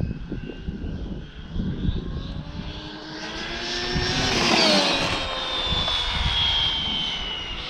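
Arrma Felony GT RC car on 8S, with a Castle XLX2 ESC and a 2028 1100kv brushless motor, making a high-speed pass. The motor's high whine climbs in pitch and loudness as the car approaches and is loudest about four and a half seconds in as it goes by. The pitch then drops sharply and the whine fades as the car speeds away.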